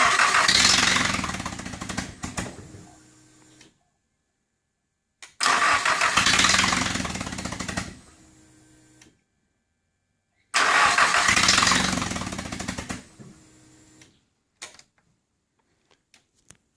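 Nissan SR20DET turbocharged inline-four engine cranked on the starter three times, each try lasting about three to four seconds and fading off, with the engine not starting.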